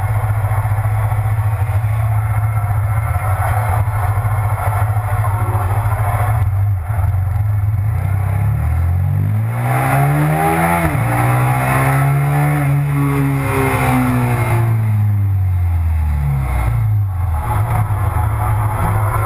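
Italika RT 650's V-twin engine idling, then pulling away with the revs climbing, a gear change about eleven seconds in, and the revs falling away as the bike slows near the end, with wind rush while under way.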